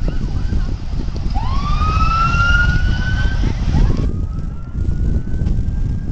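Emergency vehicle sirens wailing, one rising strongly in pitch about a second in and another rising near the end, over a steady low rumble of wind on the microphone.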